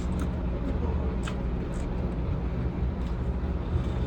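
A person eating close to the microphone, with a few short soft clicks of chewing and mouth sounds over a steady low background rumble.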